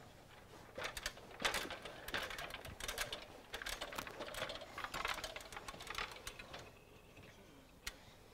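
Footsteps and clatter of a man climbing a fiberglass extension ladder: irregular knocks and rattles of boots on the rungs and gear on his belt. It is busiest for the first six seconds and thins to a few faint ticks near the end.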